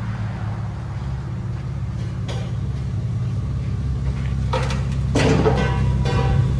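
2004 Ford Mustang V6 running steadily at idle through a true dual exhaust with Flowmaster Flow FX mufflers, factory catalytic converters and resonated tips, giving a low, even drone.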